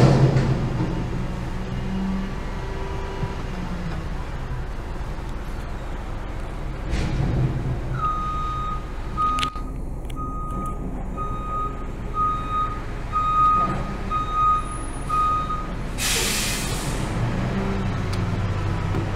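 Garbage truck engine running as the truck backs up, its reversing alarm beeping about once a second for some eight seconds. Near the end comes a loud, sharp hiss of air from the truck's air brakes.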